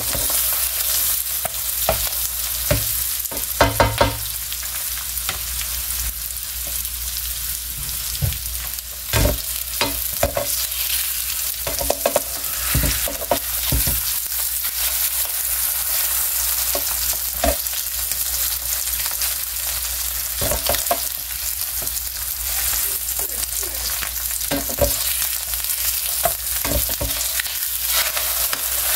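Eggs and sausage patties sizzling steadily in a nonstick electric skillet, with a plastic spatula scraping and tapping against the pan now and then as the eggs are pressed flat and their yolks broken.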